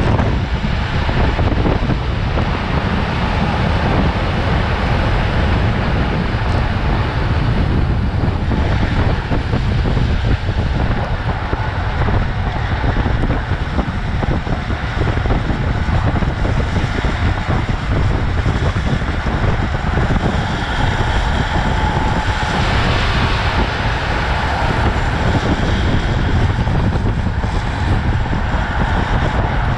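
Wind rushing and buffeting over the microphone at downhill longboard speed, about 60 to 75 km/h, with a steady hiss of wheels rolling on asphalt.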